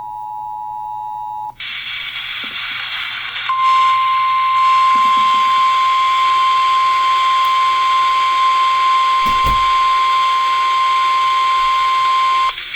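Emergency Alert System tones heard over an FM radio with static hiss. The two-tone EAS attention signal stops about a second and a half in. After a couple of seconds of hiss comes the single steady NOAA Weather Radio warning tone, held until just before the end. A low thump comes about nine and a half seconds in.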